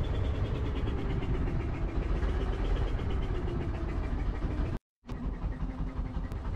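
Fishing boat's engine running steadily at low revs while the longline is hauled. The sound drops out completely for a moment about five seconds in.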